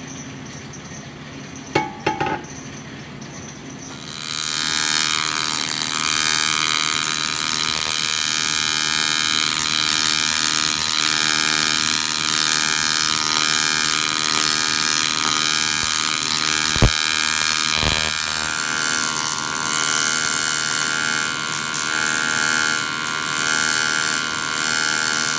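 TIG welding arc buzzing steadily, starting about four seconds in, with two sharp clicks about a second apart in the middle.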